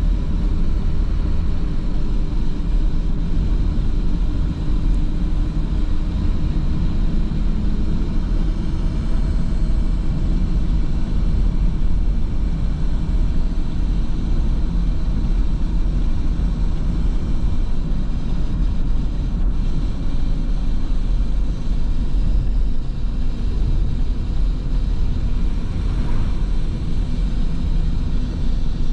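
A car driving, heard from inside the cabin: a steady low rumble of engine and tyre road noise.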